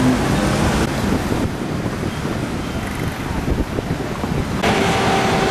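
Wind buffeting the microphone over busy street noise outdoors. The noise changes abruptly about a second and a half in and again near the end, where a steady hum comes in.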